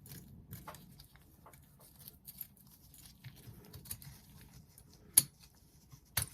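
Small metal clicks and taps of boiler burner parts being handled and fitted by hand, with a sharper click about five seconds in and another near the end.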